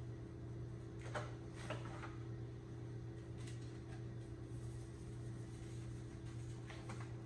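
A few light clicks and taps from spice containers being picked up and handled while a fish is seasoned, over a steady low hum.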